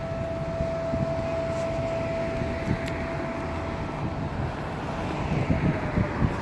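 Walking outdoors, filmed on a handheld camera: wind on the microphone and a steady distant hum that dips slightly in pitch near the end, with soft footsteps on a paved path.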